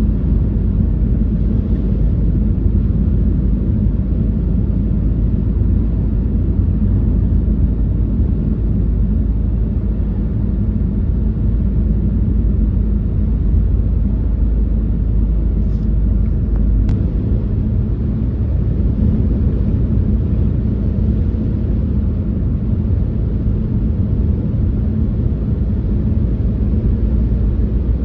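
Car driving, with a steady low road rumble. A single click about 17 seconds in, after which the deepest part of the rumble eases slightly.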